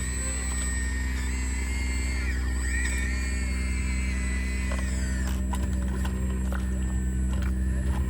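Sumitomo SH120A3 excavator's diesel engine running steadily, with wavering high squeals from the machine in the first half and a few sharp knocks and clicks later.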